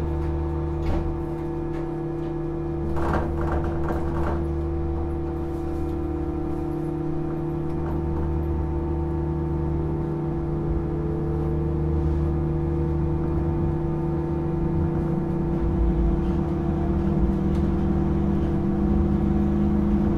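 Interior sound of a Hitachi-built Tokyo Monorail Series 1000 car: a steady hum of several low tones from the car's equipment. A few clicks and knocks come about three to four seconds in, and a tone begins rising near the end.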